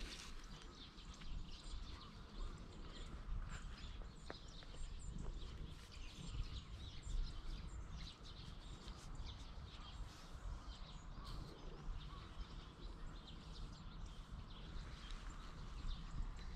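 Small birds chirping on and off in the background, over soft rustling and rubbing as a hand strokes a cat lying against a jacket close to a chest-worn camera's microphone.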